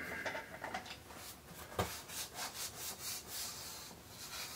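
Rubber bicycle inner tube rubbing and scuffing against hands and clothing as it is turned and lifted, checked by ear for a slow leak; no leak hiss stands out.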